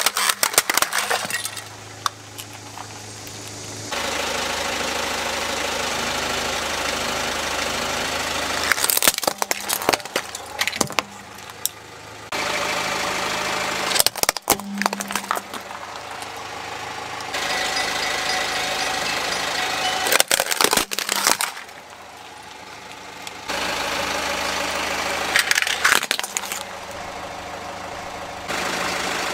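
Plastic toy vehicles crushed under a car tyre: several bursts of cracking and snapping plastic, between stretches of the car's engine idling steadily.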